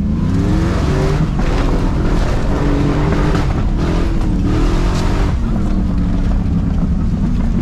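Demolition derby Chevy pickup's engine revving under hard throttle: pitch climbs over the first second, rises and falls with the throttle through the middle, then settles into a steadier, lower run near the end.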